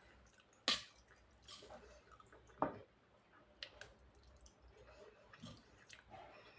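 Close-up eating sounds of curd rice being chewed: soft wet chewing and squishing, with two sharp clicks, one under a second in and one a little before the middle, and fainter ones later.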